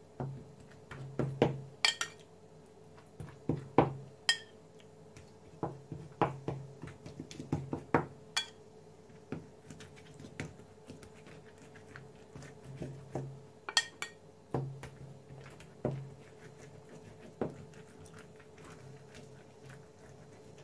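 A metal spoon clinking and scraping against a porcelain bowl and dabbing sauce onto sheets of yufka pastry: irregular knocks, a few of them ringing briefly, thinning out after about fifteen seconds. A faint steady hum runs underneath.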